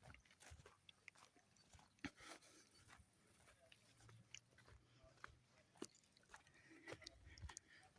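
Near silence with faint, scattered small clicks and ticks, and a faint low hum from about four to five seconds in.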